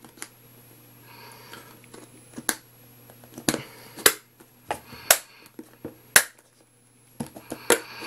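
Hands handling a hard plastic product box: a series of sharp plastic clicks and knocks, about six of them, roughly one a second in the second half.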